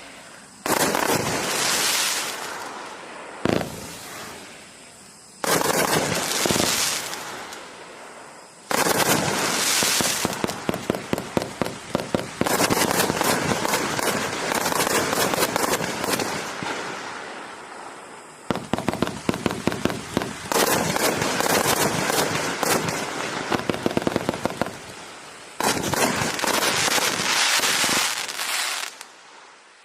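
A 180-shot, 500-gram compound fireworks cake firing in several waves: each starts with a sudden volley of rapid launches and bursts, at times several a second, then fades into a trailing hiss before the next wave begins.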